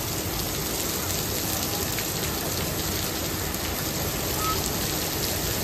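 Heavy downpour of rain, a steady even hiss.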